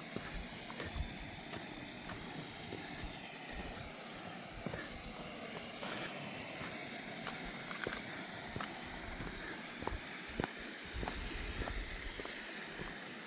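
Footsteps on the trail, irregular steps about once a second, over a steady background rumble.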